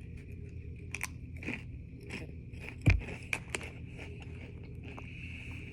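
Potato chips being bitten and chewed close to the microphone, scattered crisp crunches, with one loud thump about three seconds in.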